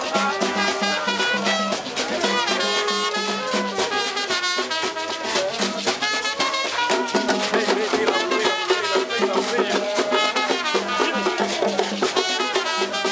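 Haitian rara music: horns and drums playing together over a steady percussion beat, with several melodic lines overlapping.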